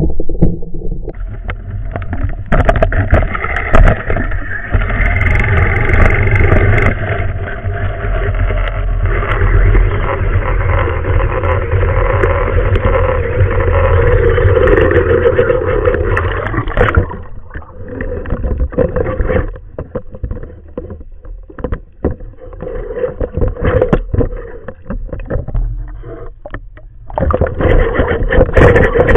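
Muffled underwater noise picked up through a camera housing: a steady low rumble and rush of water. It falls away about two-thirds of the way through to scattered clicks and knocks, then swells again near the end.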